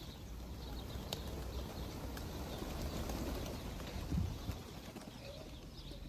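A large flock of feral pigeons cooing, with some wing flaps, over a steady low rumble.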